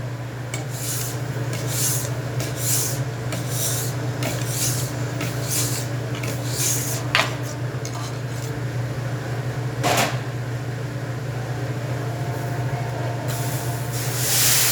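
Metal spatulas scraping and clinking on a hibachi griddle in a run of short strokes, over a steady low hum. There are a couple of sharp clicks later on, and a louder hiss comes in near the end.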